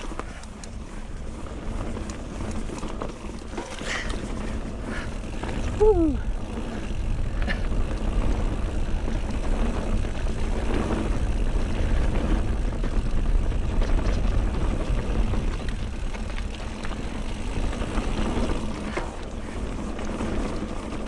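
Mountain bike riding along a dry, stony dirt trail: steady wind rumble on the camera's microphone and tyre noise over dirt and stones, with small rattles and clicks from the bike. About six seconds in there is a brief sharp sound followed by a short falling squeak.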